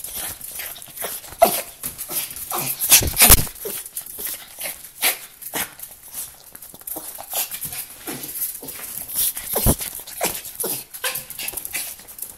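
An excited miniature pinscher gives short whines while it is petted, among many quick rustles and knocks from fur and hands brushing close to the microphone. The loudest knock comes about three seconds in.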